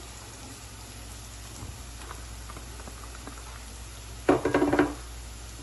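Chopped onions frying in oil in a non-stick pan, a soft steady sizzle, with light patter as chopped green chillies are tipped in. About four seconds in comes a brief loud squeaky scrape, half a second long.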